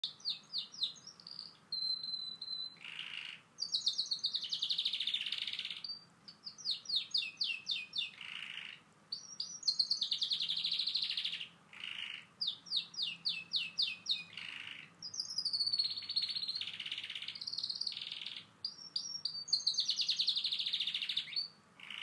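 Domestic canary singing a long song of rapid trills and whistled notes, phrase after phrase with only brief pauses between them.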